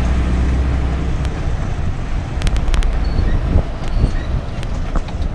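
Lorry's diesel engine and road noise heard inside the cab while driving, its low drone easing about two seconds in, with a few light clicks a little later.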